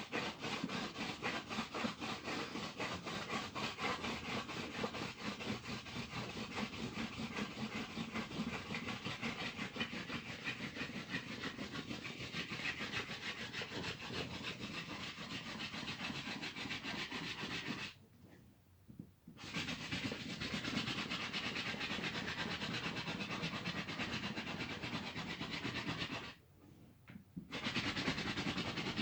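Hand drill spindle spun back and forth between the palms in a dead ivy hearth board, a steady rapid wooden rubbing and grinding. It stops twice briefly, in the middle and near the end, then resumes.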